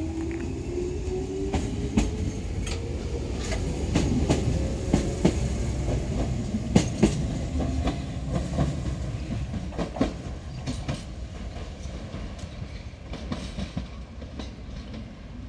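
Enshu Railway 1000-series electric train (set 1001F) pulling away from the station. Its motor whine climbs in pitch as it gathers speed over the first few seconds. Sharp clicks from the wheels crossing rail joints and points follow, and the sound fades as the train draws away.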